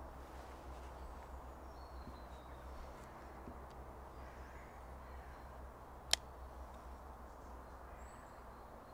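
Quiet woodland ambience: a steady low rumble of distant traffic with faint bird calls, broken once by a single sharp click about six seconds in.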